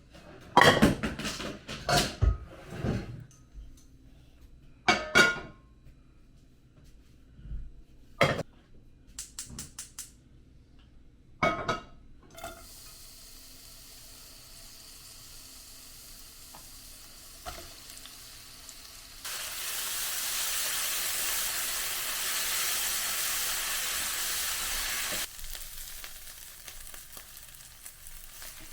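Kitchen cookware sounds: a series of clattering knocks of dishes and utensils, then a steady hiss, much louder for about six seconds in the second half, like food sizzling in a pan.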